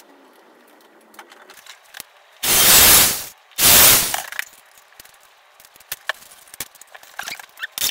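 Corded electric drill run against a painted door frame in two short bursts of about a second each, starting about two and a half seconds in, with light handling clicks before.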